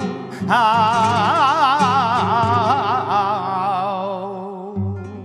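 Male flamenco singer (cantaor) with flamenco guitar accompaniment: about half a second in he starts one long, drawn-out sung phrase with wide vibrato over the guitar's low notes, fading out near the end as the guitar carries on.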